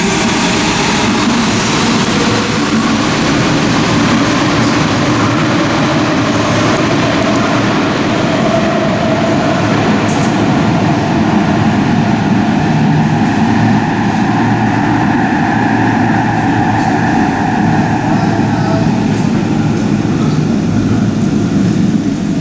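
Athens Metro electric train pulling out of an underground station: a steady, loud rumble of wheels on rail with a faint whine, echoing off the station walls as it runs into the tunnel.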